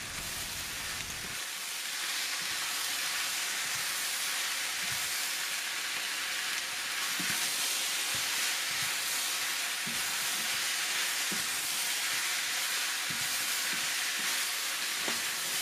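Chicken and potato pieces sizzling in a very hot wok as they are stir-fried with a spatula, with occasional soft scrapes and knocks from the stirring. The sizzle grows a little louder about a second and a half in.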